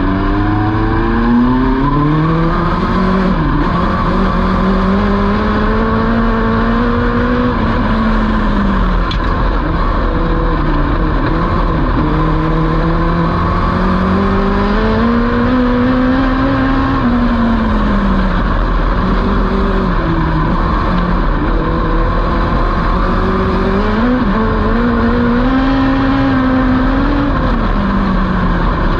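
A dwarf race car's motorcycle engine, heard from inside the cockpit during hot laps. It pulls up in pitch over the first couple of seconds, then repeatedly drops as the driver lifts for the turns and climbs again on the straights, over a steady rumble and rush.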